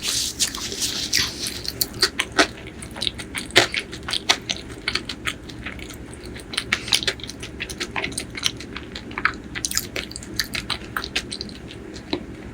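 Close-miked eating sounds: chewing, with many short, irregular wet clicks and smacks and a brief hissing rush at the start.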